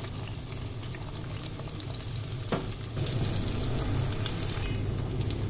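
Chopped onion sizzling and crackling as it fries in hot oil. A single knock comes about two and a half seconds in, and the sizzle grows louder about three seconds in.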